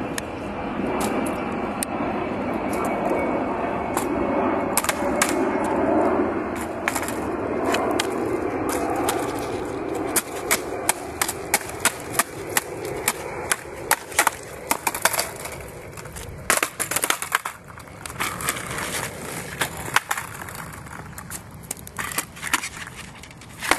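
Skateboard on rough asphalt: a steady wheel roll that swells and then fades after about ten seconds, followed by a string of sharp clacks and knocks.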